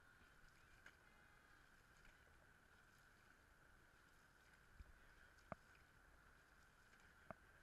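Near silence: a faint steady hiss with a couple of faint clicks about five and a half and seven seconds in.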